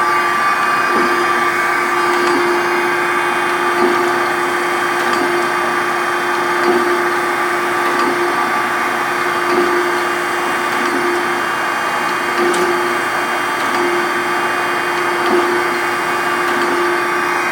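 Okamoto 16 x 32 surface grinder running under power, its spindle and hydraulic table drive giving a steady hum with a constant tone. A light knock recurs about every three seconds as the hydraulic table reverses its travel.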